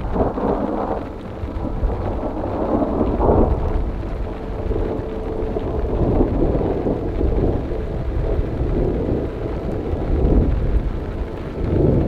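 Thunder rumbling over falling rain, swelling louder several times, most strongly about three seconds in and again near the end.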